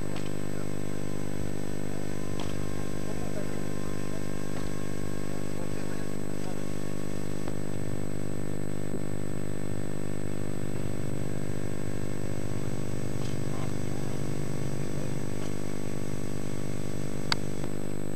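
A steady low hum with many even overtones, unchanging in pitch and level, and one sharp click about a second before the end.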